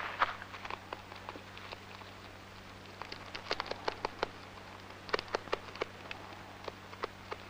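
Dry grass crackling and rustling in scattered sharp ticks as a European hamster stirs in the nesting grass of its burrow, busiest in two clusters in the second half, with a faint steady hum underneath.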